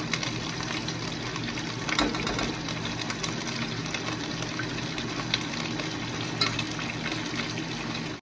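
Pesto-coated chicken breasts sizzling in oil in a nonstick frying pan: a steady sizzle with occasional small crackles, over a steady low hum.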